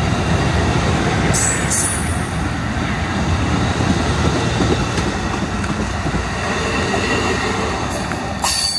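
Amtrak Superliner passenger cars rolling past close by: a steady loud rumble of steel wheels on rail with thin high wheel-squeal tones above it. Two short hisses come about a second and a half in and near the end, and the noise drops a little as the last car passes.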